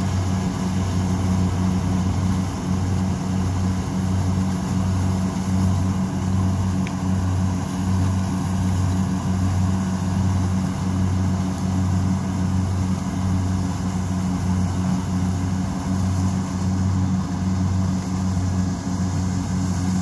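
Rice combine harvester's engine running steadily under load as it cuts rice. It makes a low drone that pulses evenly about once a second.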